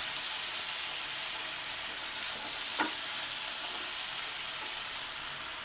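Bottle gourd curry with red-lentil fritters sizzling in oil in a hot kadai while it is stirred, cooked with no added water. One short spatula tap sounds about three seconds in.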